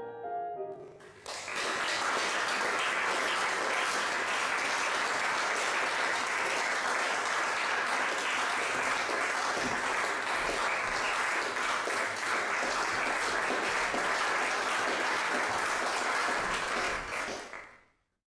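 Audience applauding steadily, starting about a second in and fading out near the end. A few piano notes die away just before the clapping begins.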